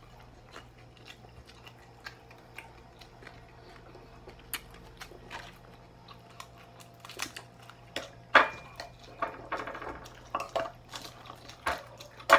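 Someone eating: chewing, with spoon and fork clinking on a plate. The clinks are sparse and soft at first and turn into busier clatter in the second half, with the loudest clink about eight seconds in.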